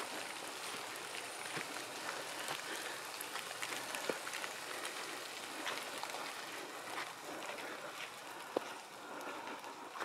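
Footsteps through dense forest undergrowth, with irregular small crackles and snaps of twigs and debris underfoot over a steady hiss.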